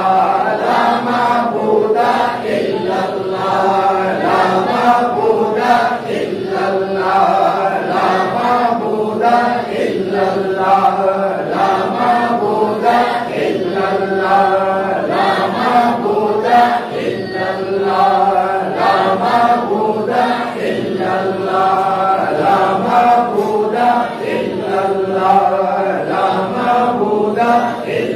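Men chanting Arabic zikr in unison, a devotional refrain repeated steadily over and over.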